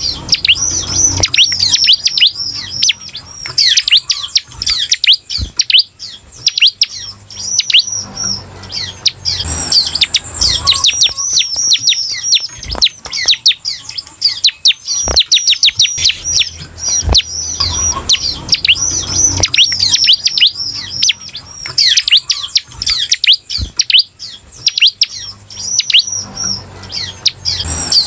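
Bar-winged prinia (ciblek) singing its 'semi' song: a fast, unbroken run of high chirps, many sweeping downward. This is the song that keepers play to stir silent or young ciblek into singing.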